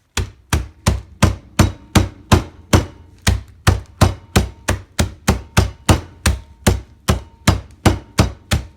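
Peanuts being mashed by steady, repeated pounding: a run of sharp knocks at about three a second.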